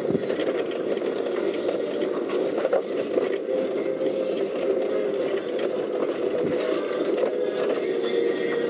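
A vehicle driving over a rough dirt track, heard from inside the cabin: steady engine and road noise with a few knocks.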